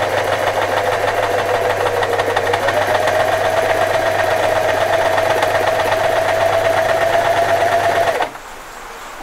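Singer FM 2250 electric sewing machine running steadily at speed, stitching a buttonhole. Its motor hum steps up slightly in pitch about two and a half seconds in, and the machine stops suddenly near the end.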